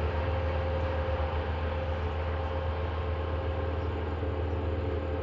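Wood chipper running steadily: a low engine drone with a steady higher tone held over it.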